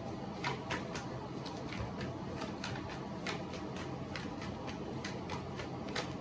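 Tarot cards being shuffled and handled: a string of short card snaps and flicks, a few a second, over a steady low background hiss.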